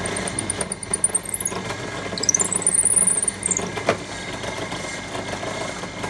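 Bench drill press running, its bit boring through Tasmanian oak hardwood. High squeals in about the first second and a half and again from about two to three and a half seconds. The sound is quieter over the last two seconds.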